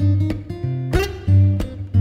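Background music: acoustic guitar playing plucked notes and chords.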